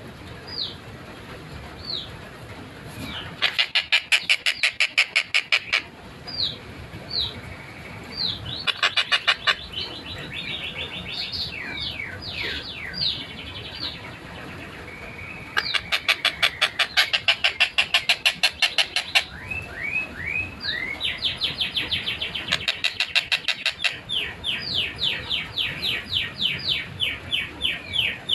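Tengkek buto kingfisher calling: scattered single down-slurred notes, broken by fast rattling trains of sharp notes at about a dozen a second that last a second to several seconds. This is the close-packed 'speed rapat' delivery prized in a tutor recording.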